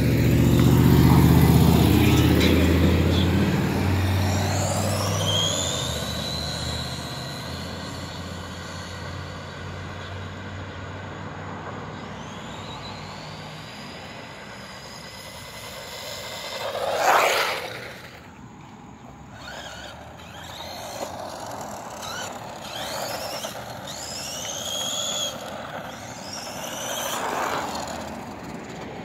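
Brushless electric motor of a small 1:18 scale RC truck whining, the high whine rising in pitch each time it accelerates, several runs in all. A louder low rumble fills the first few seconds, and a brief whoosh comes about two-thirds of the way through.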